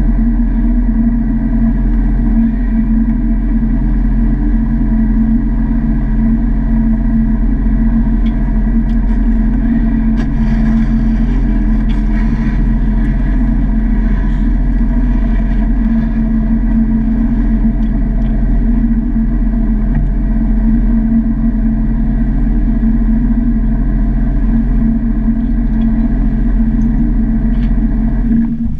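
Sea-Doo GTR 215 jet ski's supercharged three-cylinder four-stroke engine idling steadily as the craft creeps along at low speed. The engine stops abruptly at the very end.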